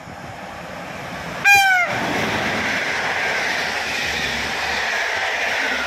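An electric locomotive sounds one short horn blast, its pitch dropping as it passes about a second and a half in. Then the steady rush and rumble of the PKP Intercity passenger coaches running through the station.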